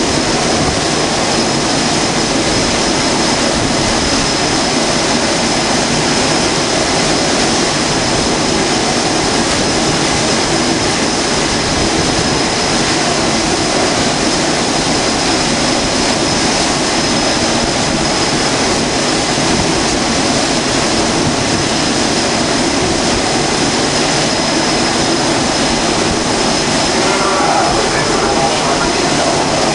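Navy jet engines running on a carrier flight deck: a loud, even noise that holds steady, with a high steady whine over it.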